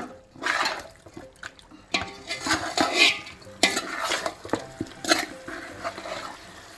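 Marinated chicken pieces being stirred in a large aluminium pot, with a spoon scraping and knocking against the metal in irregular strokes.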